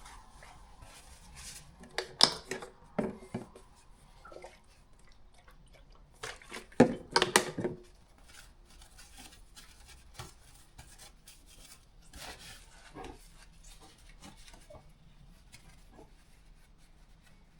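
Rag wiping overspray off a motorcycle exhaust header with alcohol: scattered short rubbing and scraping, loudest about a third of the way in.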